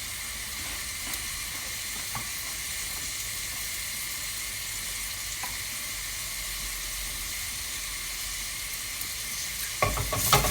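Onion frying in a pan, giving a steady sizzle, with a few short knocks and a louder clatter near the end.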